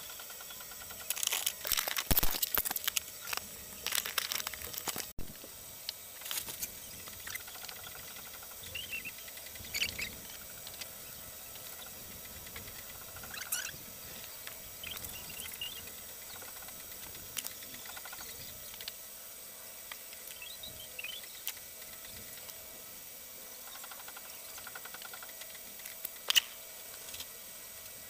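Faint rustling and scattered clicks of handling close to the microphone, denser for a few seconds near the start, with a few faint high chirps.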